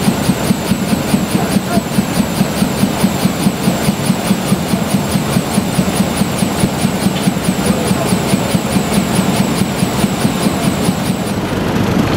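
Diesel locomotive engine idling close by, with an even pulsing beat about three times a second. Near the end the beat gives way to a smoother, more even noise.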